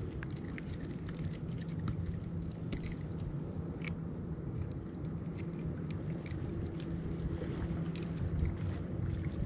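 A low, steady engine drone runs throughout, with scattered small clicks and taps as a caught bluefish is unhooked by hand from a metal spoon lure.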